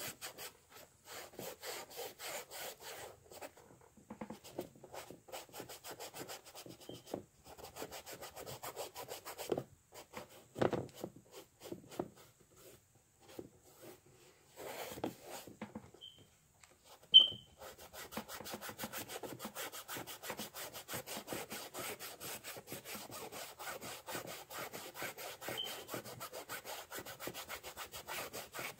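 A paintbrush scrubbing acrylic paint onto a canvas in quick back-and-forth strokes, a dry scratchy rubbing with short pauses between strokes. A single sharp click a little past halfway is the loudest sound.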